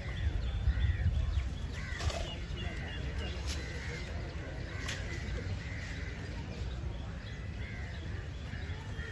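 Crows cawing over and over, about one short call a second, over a low steady rumble, with a few sharp clicks.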